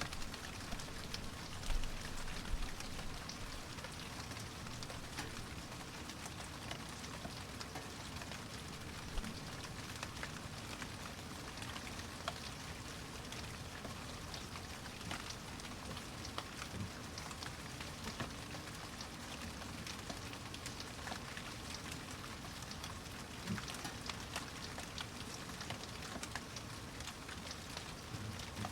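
Steady rain falling, an even hiss with many individual drops ticking on a surface and a few louder drips now and then.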